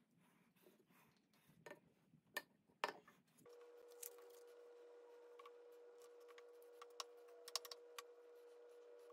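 Faint clicks and light knocks of small wooden parts being handled and set down on a wooden workbench. About three and a half seconds in, a steady low hum comes in beneath them.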